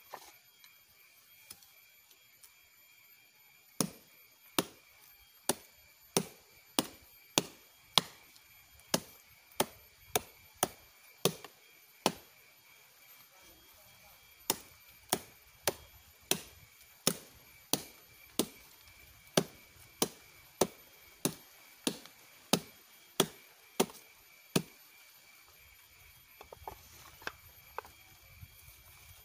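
A sugar palm flower stalk being beaten with a wooden club: a steady run of sharp knocks, about one and a half a second, with a short pause partway through and a few lighter taps near the end. This beating of the stalk is done to bring on the flow of sap before it is tapped.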